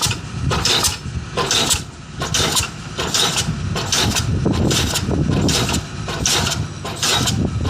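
Diesel pile hammer driving a spun concrete pile, firing in a steady rhythm of a little more than one blow a second over a continuous low rumble.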